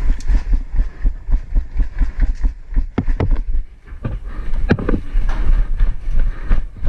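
Movement and handling noise from a player moving during an airsoft game: irregular low thumps and rustling, with a few sharper clicks about halfway through.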